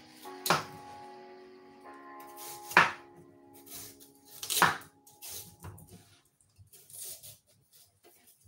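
Kitchen knife knocking on a wooden chopping board as it cuts the rind off a watermelon: three sharp knocks about two seconds apart, then fainter taps.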